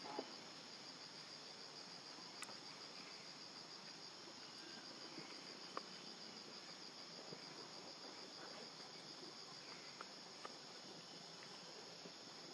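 Steady, faint chorus of insects: a high, fast-pulsing trill that runs on unbroken, with a few faint ticks scattered through it.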